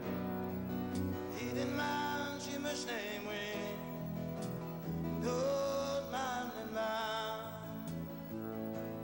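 A song with a singer over a guitar-backed band. The sung lines come in phrases, about two seconds in and again from about five seconds in, over steady accompaniment.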